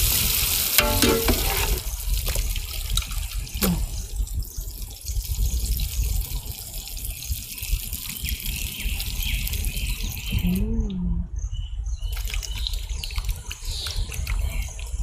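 Beaten egg mixture being poured into a large frying pan of potatoes, a steady wet pouring and splashing.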